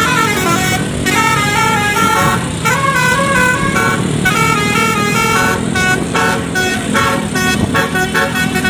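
A bus's basuri, a multi-tone musical air horn, playing a melody at length. Its loud, buzzy notes step up and down in quick succession with only brief breaks.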